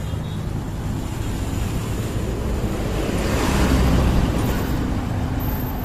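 Road vehicle noise with wind rushing over the microphone. A vehicle passes close by: the noise swells about three seconds in and fades again about a second later.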